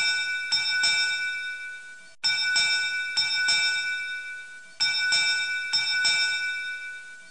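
Timer's alarm bell ringing as the countdown ends. A bright metallic bell is struck in quick groups of about four strokes, three groups in a row, each ringing out and fading before the next.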